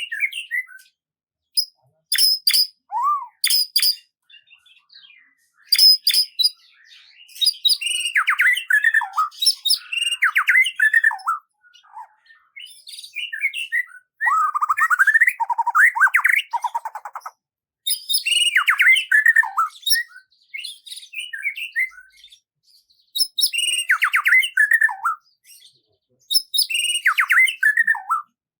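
Songbird singing: phrases of quick chirps and falling whistled notes, repeated every few seconds with short pauses between them.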